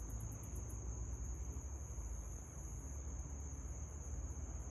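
Steady high-pitched insect chorus of trilling insects, pulsing briefly near the start, over a low rumble.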